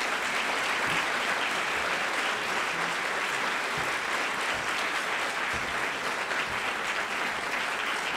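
A large audience applauding steadily, welcoming the guest speaker after his introduction.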